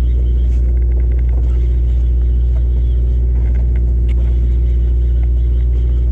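Steady low rumble of a sportfishing boat's engine running, with a few faint ticks over it.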